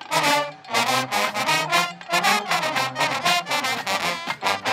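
HBCU marching band brass section playing loud, short, punchy chords, about two or three hits a second, with sousaphones carrying the low part.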